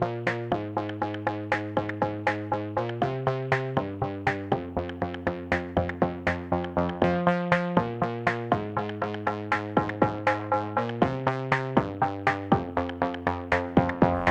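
Background music: an electronic track with a steady beat of about four strikes a second over shifting synthesizer chords.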